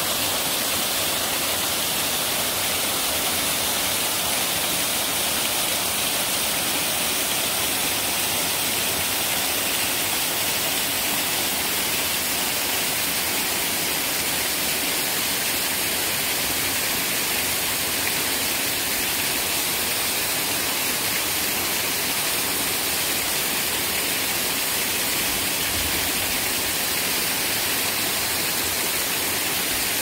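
Waterfall and small cascades running over boulders: a steady, even rush of falling water, with no change throughout.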